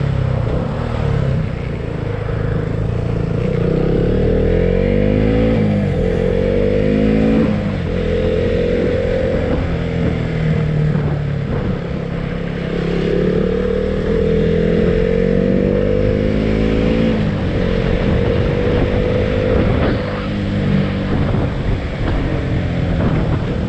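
Motorcycle engine heard from the rider's seat. It revs up and drops back in pitch several times as it shifts through the gears, under a steady rush of wind.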